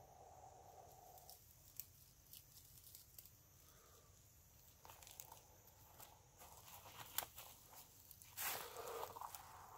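Dry tinder bundle crinkling and crackling softly in the hands while breath is blown into it to bring a friction-fire ember to flame, with a louder rush of blowing about eight and a half seconds in.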